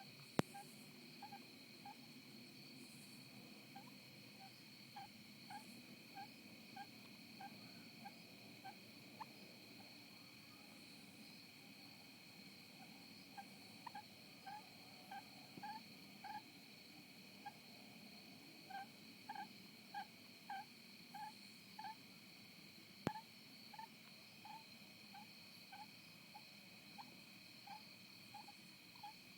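A sleeping wren snoring: faint, short, soft peeps repeated about two a second in runs with brief pauses. A steady high-pitched drone of several tones sits behind them, and a sharp click comes just after the start and another about two-thirds of the way through.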